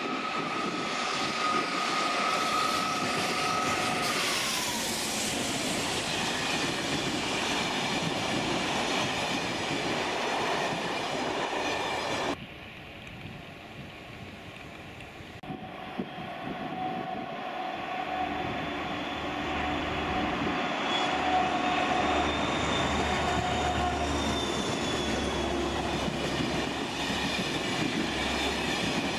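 A train running, its rolling noise carrying several steady high tones, one of which falls away about four seconds in. The sound cuts abruptly to a quieter stretch about twelve seconds in, then builds up again.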